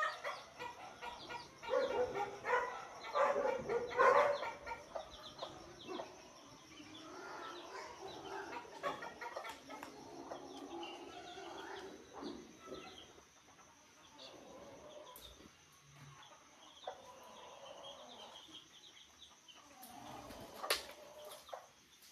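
Chickens clucking, loudest over the first four seconds and fainter after that.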